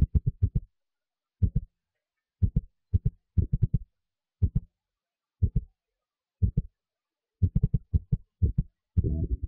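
Short, deep thumps in an even beat of about one a second, with quick runs of several hits near the start and again near the end, and silence between them.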